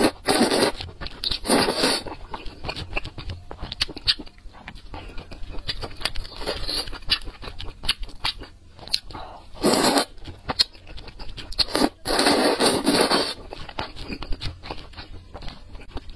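Close-miked eating of thick noodles in chili sauce: loud slurps, two in the first two seconds, one about ten seconds in and a longer one about twelve seconds in, with wet chewing clicks in between.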